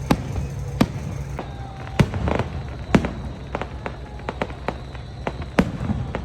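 Fireworks bursting: a string of sharp bangs, the loudest about two and three seconds in, with smaller crackling pops between them.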